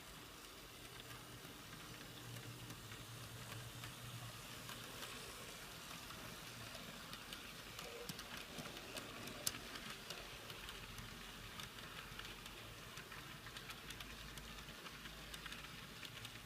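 N-scale Life-Like GP38-2 model locomotive running quietly on track: a faint steady motor whir with light clicking of the wheels, one sharper click about halfway through. The locomotive has just been cleaned and lubricated.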